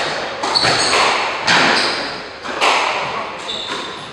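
Squash rally: the ball smacks off the rackets and the walls about once a second, each hit ringing in the court, with short squeaks of shoes on the wooden floor.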